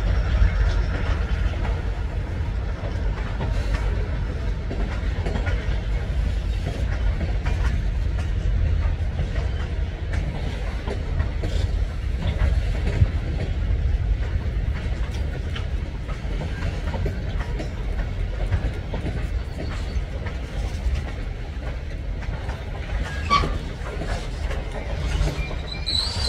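Freight cars rolling past on the rails: a steady low rumble of steel wheels, with a light clicking rhythm from the wheels, and a short high squeal about three seconds before the end.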